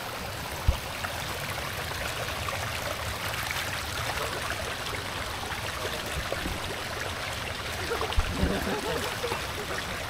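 Stream water running steadily over rocks, with a short low thump under a second in and another about eight seconds in.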